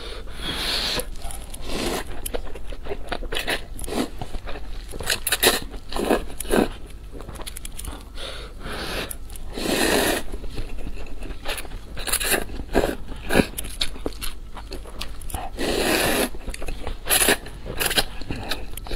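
Close-miked eating: a person slurping instant noodles from a paper cup and chewing them, a string of wet slurps, smacks and mouth clicks, with longer slurps about ten seconds in and again near the end.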